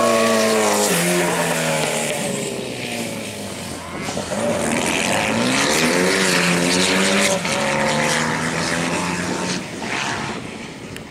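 Renault 5 Turbo rally car's turbocharged engine at full stage pace. The pitch drops as it slows in the first second, then climbs hard under acceleration about four seconds in, falls at a gear change, climbs again and fades as the car drives away.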